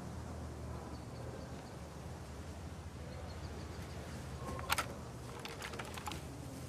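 Quiet outdoor ambience: a steady low rumble with faint, short bird or insect chirps. A few sharp clicks and knocks come a little past halfway.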